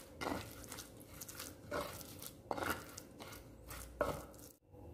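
Pestle working ground peanut-and-chili sambal in a cobek mortar, mixing in salt: a series of irregular scrapes and knocks, about one or two a second.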